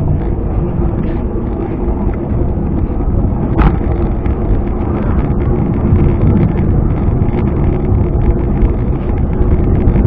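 Steady rumble of wind buffeting the microphone and a bicycle rolling over paving tiles, with a single sharp click about three and a half seconds in.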